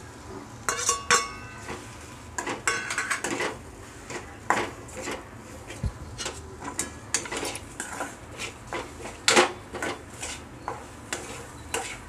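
Steel spoon clinking and scraping against a stainless steel kadhai as dry spices are stirred and fried into masala paste, in irregular clinks and scrapes. About a second in, a steel plate knocks against the pan with a short metallic ring as the spices are tipped in.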